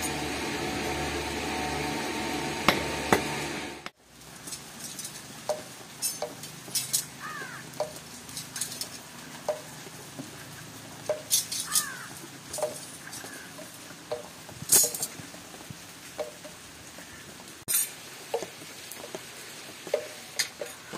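Scattered light metallic clinks and taps of steel sickle blanks, cut from an old tractor plough spring, being handled and laid down, over a steady low background. The background changes abruptly about four seconds in, after which the clinks are quieter and sparser, with two short falling chirps.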